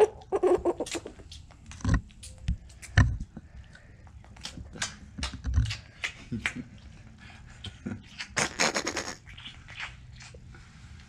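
Young Jersey calf sucking and mouthing a man's fingers: a run of wet smacks and sharp clicks, with a few dull thumps and a short noisy burst about eight seconds in.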